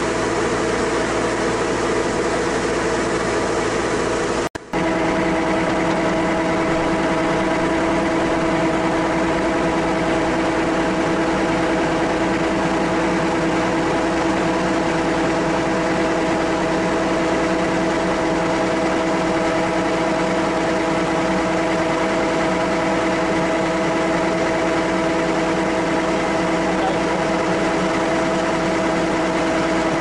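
Yanmar AW82GV rice combine harvester's diesel engine running steadily while its unloading auger discharges rice grain. The sound drops out for an instant about four and a half seconds in and resumes with a slightly different steady hum.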